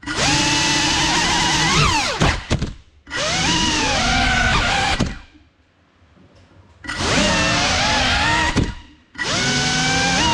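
GEPRC Cinelog 35 cinewhoop quadcopter's motors and propellers whining in four bursts of throttle, the pitch gliding up and down, with short near-silent gaps where the throttle is cut. The pitch climbs sharply near the end of the first burst, and the longest gap falls in the middle.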